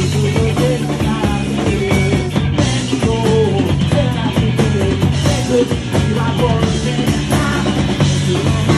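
Live rock band playing loud, punk-style, with drum kit hits and amplified guitar, and a man singing into the microphone over it.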